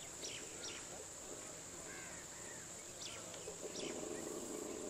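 Countryside ambience: a steady high-pitched insect drone with scattered short, falling bird chirps. A low rough noise joins near the end.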